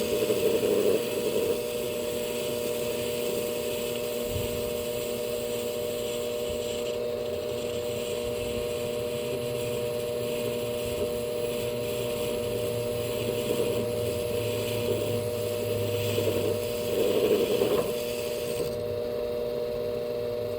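Small lathe running with a steady motor whine while taking a light facing cut on a small workpiece. A higher hiss drops away near the end while the whine carries on.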